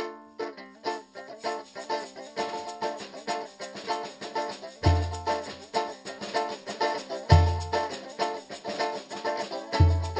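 Instrumental opening of a ciranda: a banjo picks a repeating melody over a steady shaker. From about five seconds in, a deep drum strikes about every two and a half seconds.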